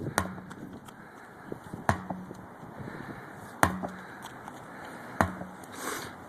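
Sledgehammer striking a tractor tire four times at a steady pace, about one blow every second and a half, each blow a sharp crack with a short low ring after it.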